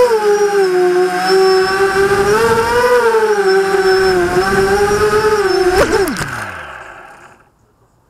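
Vortex FPV quadcopter's electric motors and propellers whining in a hover, the pitch wavering up and down with the throttle. About six seconds in there is a brief knock as it sets down in the grass, and the motors spool down with a falling whine that fades out.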